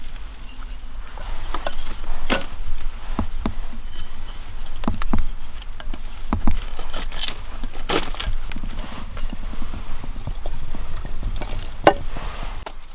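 Irregular sharp knocks and snaps, about a dozen spread unevenly through, over a steady low rumble.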